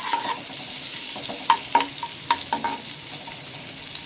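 Chopped garlic sizzling in melted butter in a pan as it browns while it is stirred, with a quick run of sharp, ringing knocks of the stirring utensil against the pan between about one and three seconds in.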